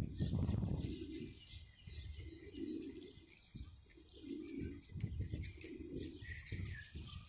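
A pigeon cooing: a series of short, low coos every second or two, over a low rumble that is loudest in the first second.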